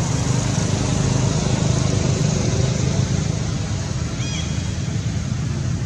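Steady low rumble of a running engine, with a short high-pitched chirp about four seconds in.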